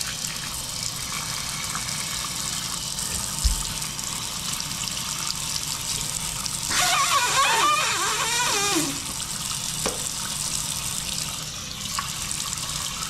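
Bathroom sink faucet running steadily into the basin with its aerator and flow restrictor taken out, so the water comes at full, unrestricted flow. There is a dull bump about three and a half seconds in, and a short wavering, pitched sound in the middle.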